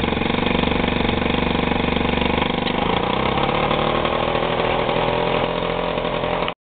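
Piaggio Ciao Px moped's 49 cc single-cylinder two-stroke engine idling steadily at about 1,450 rpm after a modified piston was fitted. Its note shifts slightly about three seconds in, and the sound cuts off suddenly near the end.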